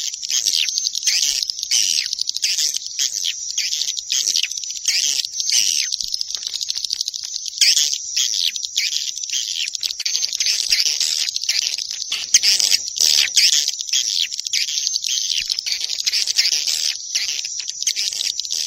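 Edible-nest swiftlet lure call: dense, unbroken high-pitched twittering chirps from many birds at once, the recorded call played from swiftlet houses to draw swiftlets in to roost and nest.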